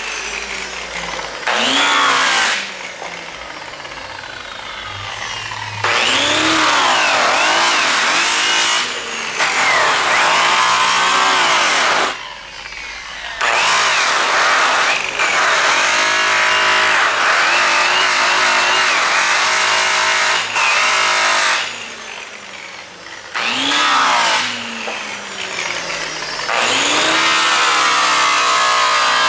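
Large angle grinder running a polishing pad against an aluminum driveshaft, its high motor whine sagging and recovering in pitch as the pad is pressed into the metal. It eases off to a quieter spell three times, around 3 to 6 seconds in, at 12 seconds and again at 22 seconds.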